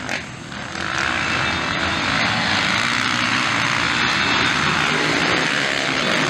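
Engines of several motocross dirt bikes racing at full throttle together. The sound comes up after about a second and then holds loud and steady.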